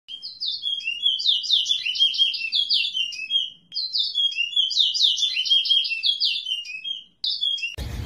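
A small songbird singing two phrases of about three seconds each, each a rapid run of high notes, and starting a third just before the end. Near the end it is cut off suddenly by outdoor background noise.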